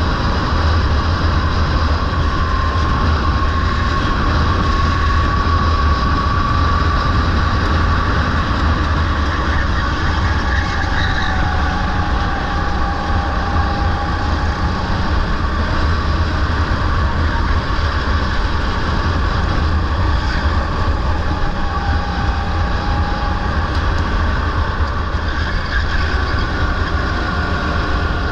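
Rental go-kart running at speed, heard from onboard: a steady motor drone over a heavy low rumble, with faint whining tones that drift slowly up and down in pitch.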